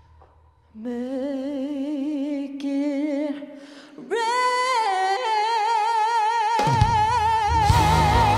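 Female lead vocalist singing alone without the band, long held notes with a wide vibrato: a low note, then a jump to a high held note about four seconds in. Near the end the band comes back in with bass and drums under her.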